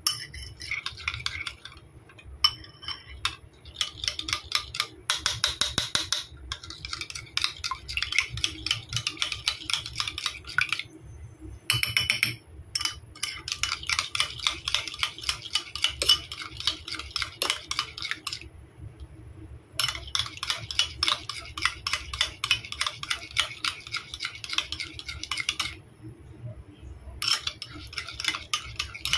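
A utensil beating a thick mayonnaise dressing in a bowl, clinking rapidly against the bowl's side in long runs of quick clicks broken by a few short pauses.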